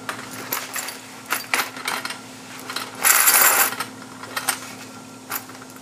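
Brass cartridge cases clinking and rattling together in a sifter as it is shaken to separate them from corn cob tumbling media. There are scattered single clinks, then one loud burst of rattling about three seconds in.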